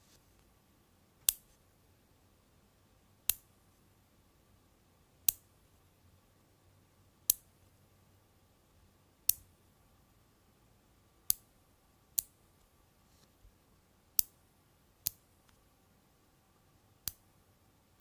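5 mm magnet balls snapping together one at a time: a single sharp click about every two seconds as each ball jumps into place on the cluster, the clicks coming a little closer together later on.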